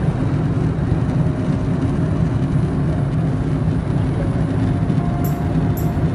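Steady cabin noise of a jet airliner in cruise: a loud, even rush of engine and airflow with a faint steady hum.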